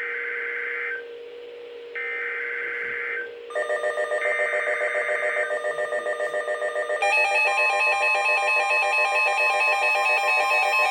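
NOAA Weather Radio SAME alert header: three buzzy digital data bursts, each about a second long with a second's gap, over a faint steady hum. Partway through the third burst a weather radio receiver's electronic alert alarm starts up, a rapid pulsing beep that turns denser and louder about seven seconds in, signalling the incoming severe thunderstorm warning.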